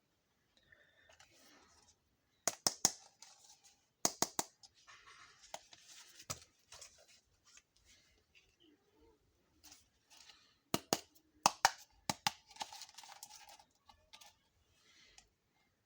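Miniature toy kitchen pieces and their packaging handled by hand: sharp clicks in quick clusters, with rustling and scraping between.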